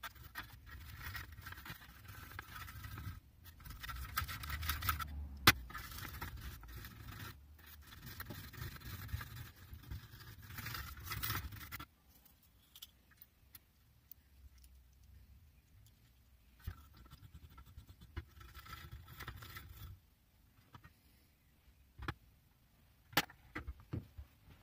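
A coarse wire-wool pad scrubbing a small steel offset adjustable spanner in a tin of liquid, in rasping strokes with a sharp click about five seconds in. After a quiet pause there is softer scrubbing, then a few sharp knocks near the end.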